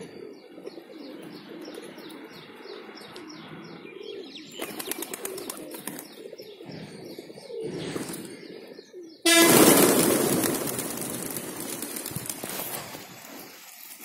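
A flock of feral pigeons cooing while they feed, with a high chirp repeated about three times a second over the first few seconds and wing flaps around five and eight seconds in. About nine seconds in a sudden loud rushing noise takes over and slowly fades.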